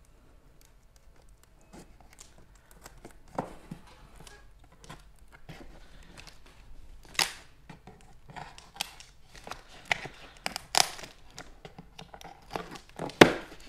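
Cardboard packaging being opened by hand: tearing and crinkling, with scattered sharp snaps and knocks that grow busier about halfway through, the loudest snap near the end.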